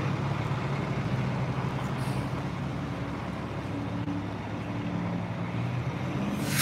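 Fire engine's diesel engine running steadily as the truck drives away, with a short burst of hiss at the very end.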